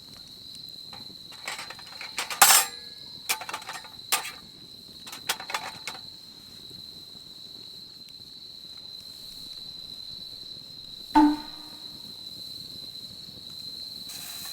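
Night insects trill in one steady high-pitched drone. Over it come scattered clicks and knocks of gear being handled for a few seconds, then one louder ringing clink about eleven seconds in.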